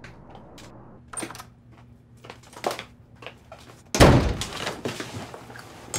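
Footsteps crossing a small room, then a single loud, heavy thump about four seconds in that dies away over a second.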